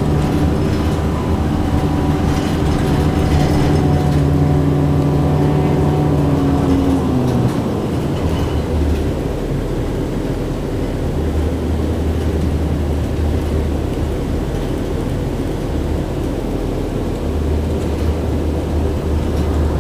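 City bus engine and drivetrain heard from inside the moving bus: a steady hum with a clear pitch that drops and fades about seven seconds in, leaving a lower rumble of the ride.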